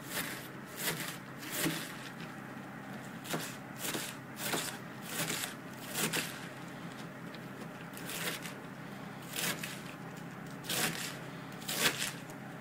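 Kitchen knife slicing through napa cabbage on a wooden cutting board: short sharp cuts at an uneven pace, about one a second.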